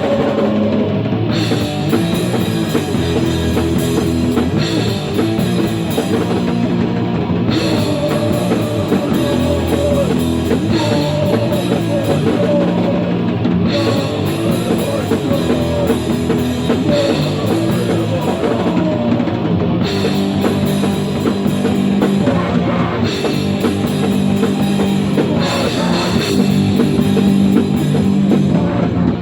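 Loud heavy rock played by a band, with a drum kit and guitar playing throughout.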